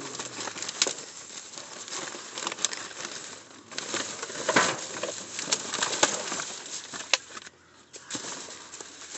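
Black plastic garbage bags rustling and crinkling as they are rummaged through, with irregular sharp crackles and a brief lull near the end.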